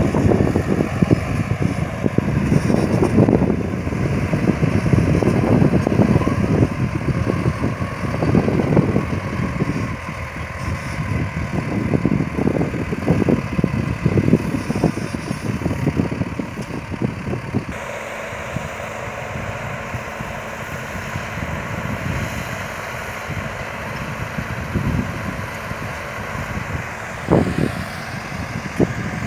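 Farm tractor engines running in the field: a John Deere tractor works the ground with another tractor behind it, a steady engine drone under uneven, gusty low rumbling. About two-thirds of the way in, the sound changes abruptly to a steadier, quieter drone from another tractor.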